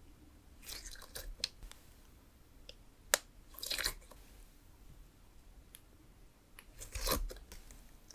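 Fingers poking and pressing clear jelly-cube slime in a jar: scattered sticky squishes and crackles, with a sharp click about three seconds in and a louder crackly squelch about seven seconds in.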